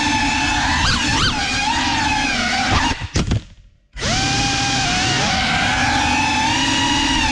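FPV drone's brushless motors and propellers whining, heard from the onboard camera, the pitch wobbling as the throttle changes. About three seconds in there are a few sharp knocks, then the motors cut out for about a second before spinning back up.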